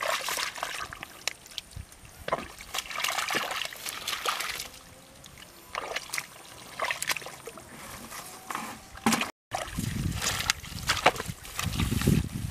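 Hands working in wet mud and ripping out grass clumps: irregular squelching, sloshing and tearing of roots and soil.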